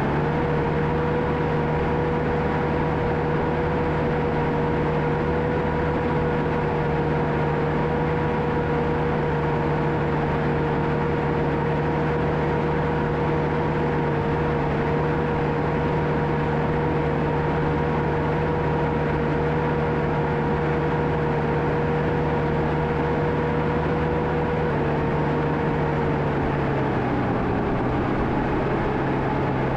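John Deere 650K crawler dozer's diesel engine running steadily, with a steady whine above the engine note; about 25 seconds in the pitch dips for a couple of seconds, then comes back up near the end.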